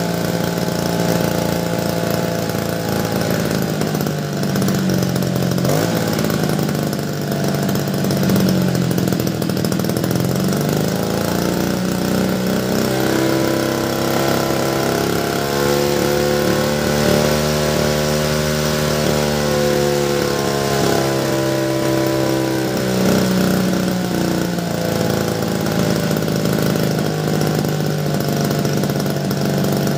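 Power sprayer's small petrol engine running while its carburetor adjusting screw is turned with a screwdriver. It speeds up about twelve seconds in and settles back to a lower speed some ten seconds later.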